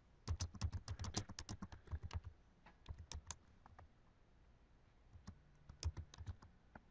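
Typing on a computer keyboard: a quick run of keystrokes for about two seconds, then scattered single keystrokes with pauses between them.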